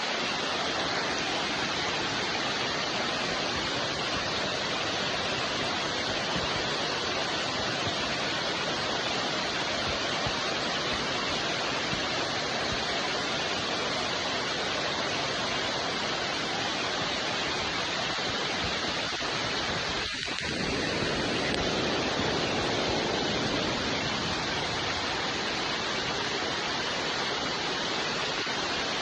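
Steady rain falling, an even hiss; about two-thirds of the way through it dips for a moment, then swells slightly for a few seconds.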